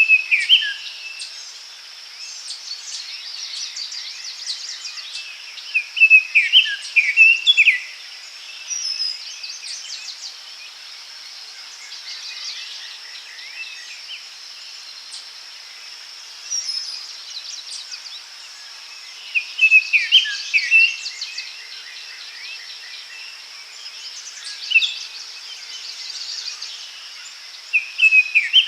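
Forest ambience: songbirds singing short whistled and trilled phrases that come in clusters every few seconds, over a steady high-pitched insect drone.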